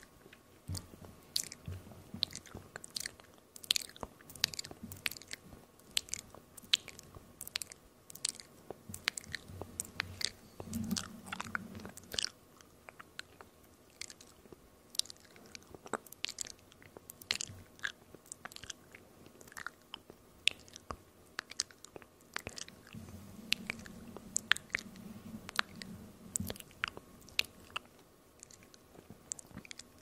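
ASMR mouth sounds made right at a microphone: a fast, irregular run of wet clicks, pops and smacks from lips and tongue, with two stretches of a low sound underneath, one around the middle and one past two-thirds.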